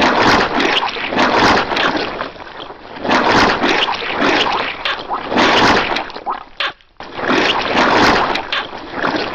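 Cartoon squashing sound effects: a run of wet, squelching splats, roughly one a second.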